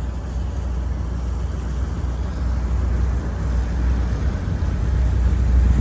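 A car ferry's engines running with a steady low rumble under a noisy hiss, getting a little louder near the end as the ferry gets under way.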